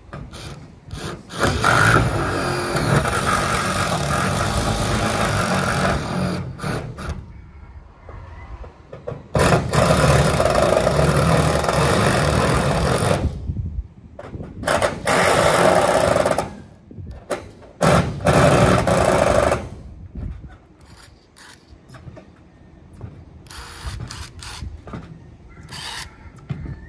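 Power drill driving screws into metal roofing sheets, running in four stretches of a few seconds each with short clicks and taps in between.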